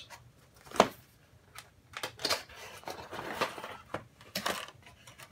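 Cardboard box being handled and opened by hand: a sharp tap about a second in, then rustling and scraping of the cardboard as the lid flaps are lifted.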